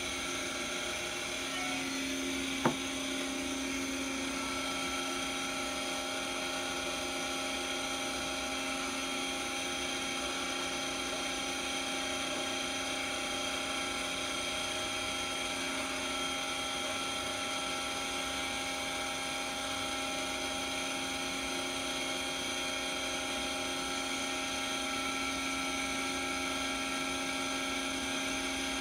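Giddings and Lewis PMC-50 CNC horizontal boring mill running, a steady whine of several even tones that does not rise or fall. A single sharp click sounds about three seconds in.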